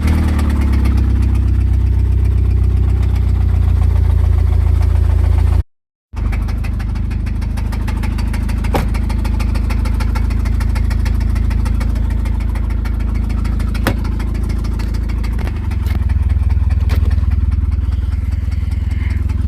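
1999 Honda Civic four-cylinder engine running with a rapid, even knock: rod knock from a failing connecting-rod bearing. The sound cuts out briefly about six seconds in.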